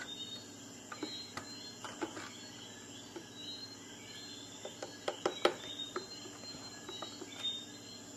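A wooden spatula scrapes thick cake batter out of a bowl into foil loaf pans, giving soft scrapes and a few light knocks and clicks, the loudest cluster about five seconds in. A faint, steady, high-pitched chirping repeats in the background.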